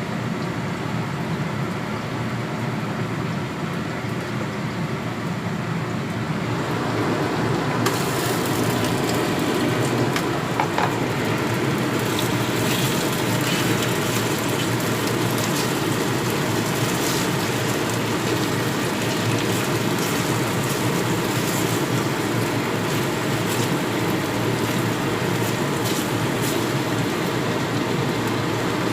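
Food sizzling in hot sesame oil in a frying pan. About seven or eight seconds in the sizzle grows louder and crisper, with a steady run of popping crackles.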